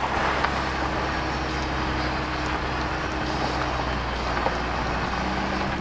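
Car driving on a dirt road, heard from inside the moving vehicle: a steady engine drone under the rumble of tyres and road noise. A higher engine tone drops out about four seconds in and a lower one comes in near the end.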